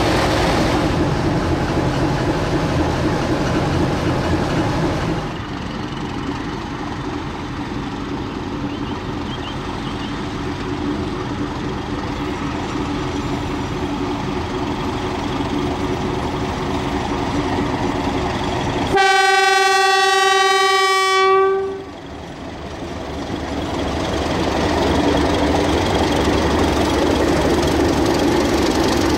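DE class diesel-electric shunting locomotive DE 1429: first its engine and radiator fan running at close range, then, after a drop in level about five seconds in, the locomotive approaching. About two-thirds of the way through it sounds its horn in one steady blast of about three seconds, then the engine grows louder as it passes with its carriages rolling behind.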